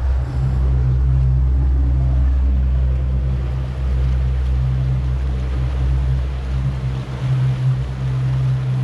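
Twin outboard motors running steadily with the boat under way, a constant low drone, over the rush of water from the wake and wind.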